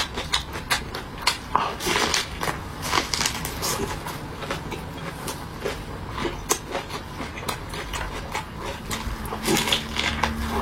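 Eating sounds: irregular wet clicks and smacks of chewing and swallowing food.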